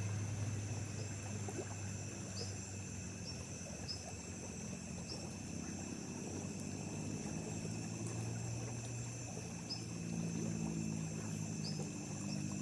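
Night insects keep up a steady high-pitched chorus, with a few short chirps scattered through it. Under them runs a low steady hum, like a distant motor.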